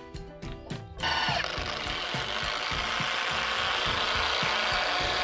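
Cordless drill-driver starting about a second in and running steadily under load, driving a long 140 mm structural screw into a timber rafter.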